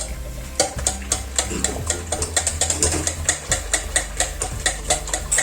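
Whisk beating cake batter in a bowl, a fast, fairly regular clicking of the wires against the bowl's sides, about four to five strokes a second. Background music plays underneath.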